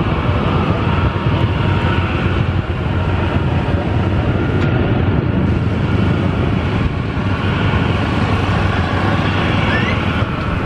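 Airbus A330neo's Rolls-Royce Trent 7000 turbofans at takeoff thrust, a loud steady roar with a deep rumble underneath.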